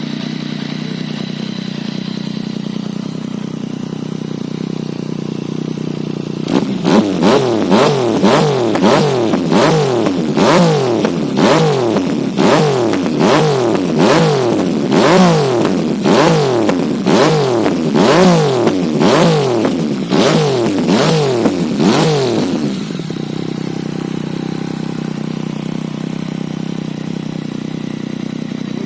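Yamaha MT-09 Tracer inline three-cylinder engine through an aftermarket Kimoto Superbike slip-on muffler with a carbon-fibre end cap. It idles steadily, then from about six seconds in is blipped in quick revs about once a second, each rising and falling in pitch. After about twenty-two seconds it settles back to a steady idle.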